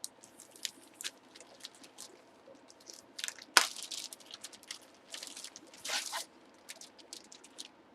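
Light rustling, crinkling and scattered small clicks of trading cards and plastic packaging being handled, with two louder rustles about three and a half seconds and six seconds in.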